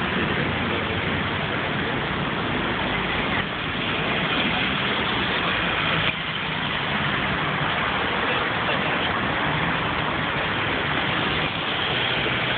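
Steady street traffic noise: motor vehicles running and idling close by, with a low engine hum under a constant wash of road noise.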